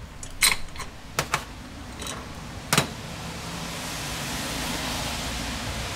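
A few sharp metal clinks as the parts of an old cast iron block plane (its lever cap, screw and blade) are handled and set down on a metal workbench during disassembly, followed by a steady hiss.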